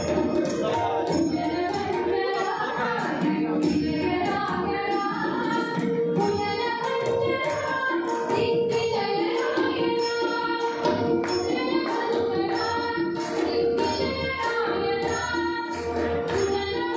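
Live Indian devotional singing: a woman sings melodic phrases to harmonium, which holds steady notes beneath her voice, and a tabla keeping an even rhythm of about two to three strokes a second.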